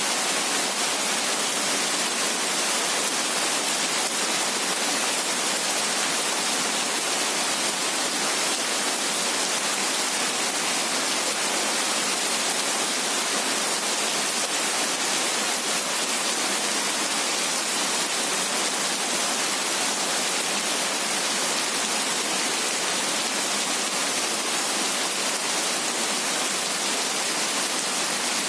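Steady heavy rain: a dense, even hiss that holds without change, with no thunder or low rumble.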